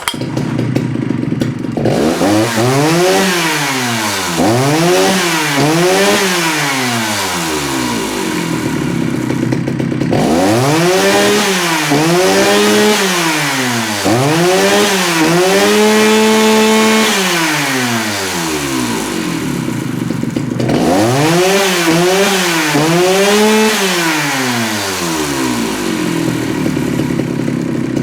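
Jonsereds 70E two-stroke chainsaw running, its engine blipped up from idle again and again in quick bursts of revs, in three rounds with steady idling between them. In the middle round it is held at high revs for about two seconds before dropping back.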